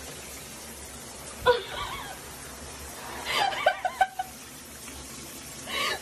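A person laughing in short bursts: once about a second and a half in, then a longer run of laughs around three to four seconds in, and briefly again near the end, over a steady background hiss.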